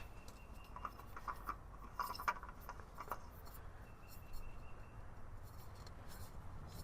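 Faint, scattered light clicks and scrapes of a new oil filter being handled and threaded on by hand.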